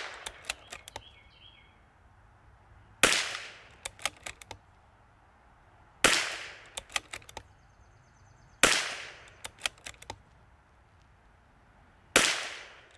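Four shots from a CZ 457 bolt-action .22 LR rifle firing Eley Ultra long-range ammunition, about three seconds apart. Each shot is followed by a quick run of clicks as the bolt is worked, and the tail of a shot fired just before is heard at the very start. These are fouling shots to condition the barrel before a group.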